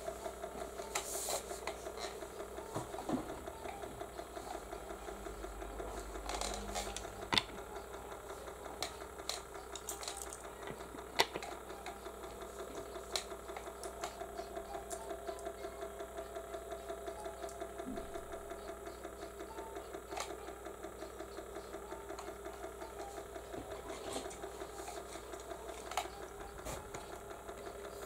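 Small electric motor of a rotating display turntable running steadily, humming with an even, fast rattling pulse and a few sharp light clicks.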